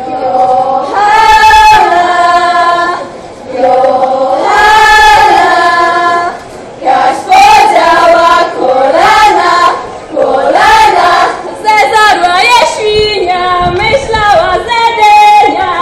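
A group of women singing a Polish Orawa folk song together, in loud phrases with long held notes and short breaks between them.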